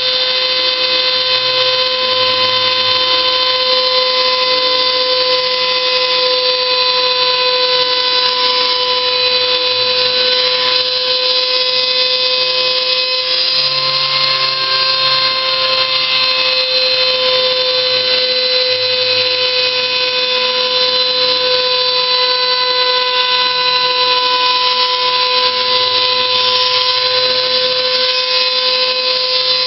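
Homemade CNC machine running, its motor giving a steady, loud high whine with a slight wobble in pitch about halfway through.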